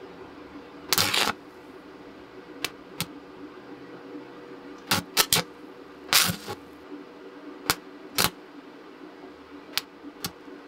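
Brief bursts of an electric welding arc as a welding rod is struck against the cast-iron vise body, about a dozen short strikes, the longest lasting about a third of a second, over a steady low hum.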